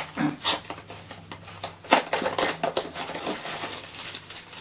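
Crinkling and crackling of WWE Mystery Minis blind-box toy packaging being handled and opened by hand, with two louder crackles about half a second and two seconds in.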